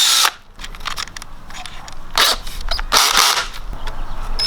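Power drill boring a 1/4-inch hole in a sprinkler pipe. It runs and stops just after the start, then gives a few short, rough bursts of drilling.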